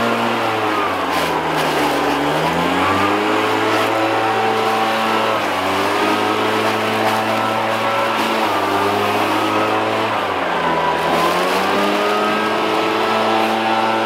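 Stihl BR700 two-stroke backpack leaf blower running at high throttle with a rush of air, clearing leaves from garden beds. Its engine pitch sags and climbs back twice, about two seconds in and again near eleven seconds, as the throttle is eased and reopened.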